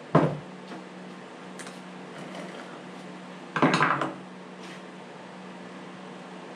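A sharp knock just after the start, then a short rattling clatter around four seconds in: hard objects knocked and handled on a workbench, over a steady low hum.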